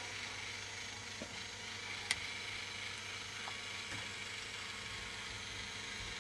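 K'nex ball machine running: a steady whir and rattle from its motor-driven lifts, with a sharp click about two seconds in and a few fainter ticks, like balls knocking on the plastic track.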